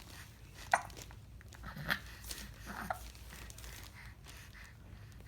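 A young child hiccuping: three short, sharp hiccups about a second apart, the first the loudest, with small voice sounds around the later two.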